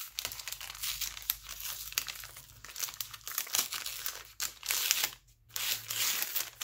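Brown paper bag crinkling and rustling as hands flatten it and slide a paper tag out of it, a dense run of quick crackles with a short pause about five seconds in.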